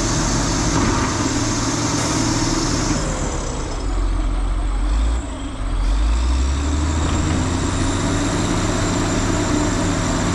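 Heavy diesel engines of trucks or earthmoving machines running, with a short dip in level and a change in the engine note about five seconds in.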